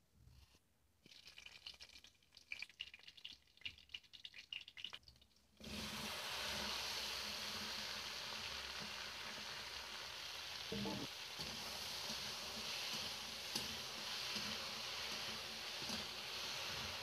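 Hot oil in a kadhai crackling with small irregular pops. About five and a half seconds in, chopped okra drops into the oil and a much louder, steady sizzle starts. A metal spatula knocks and scrapes against the pan a few times as the okra is stirred.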